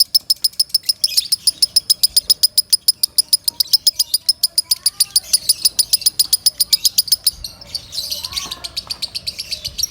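Lovebird singing loudly: a long, fast run of high chirps at about nine a second, which about seven seconds in breaks into a denser, rougher chatter.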